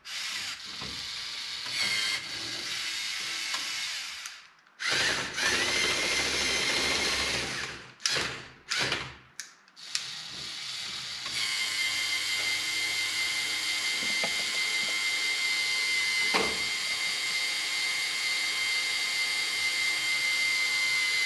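The small electric motors and plastic gearing of a tracked LEGO Technic RC straddle carrier whirring as it drives on its tracks and works its container spreader. There are several runs of a few seconds each, with short bursts, in the first half, then one long, steady, high-pitched whine for about ten seconds.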